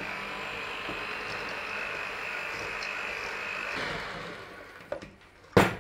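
Electric hand mixer running steadily, its beaters creaming butter and sugar in a stainless steel bowl, then switched off and winding down about four seconds in. A light click and then a sharp knock follow near the end.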